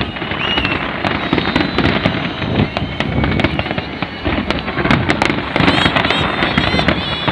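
Large aerial fireworks display exploding without pause: a dense stream of bangs and crackles, many bursts overlapping.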